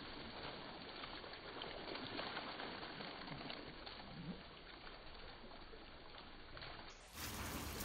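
Water splashing and trickling as freshly made khanom chin rice noodles are swished and rinsed by hand in a plastic basket. About seven seconds in, the water sound turns suddenly louder and fuller.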